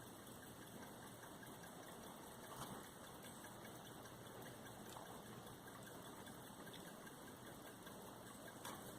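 Near silence: faint steady room hiss, with one small tap about two and a half seconds in.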